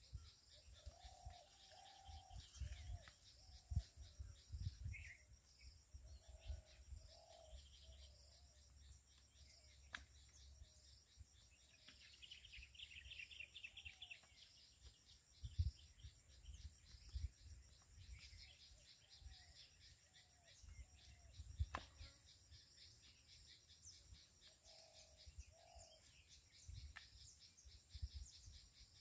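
Quiet open countryside with faint bird calls, short chirps and whistles scattered here and there. Occasional low thumps are mixed in.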